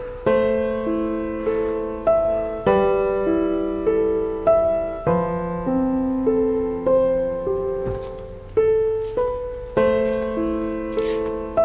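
Slow, gentle solo piano music: single notes and soft chords struck about once or twice a second, each fading away.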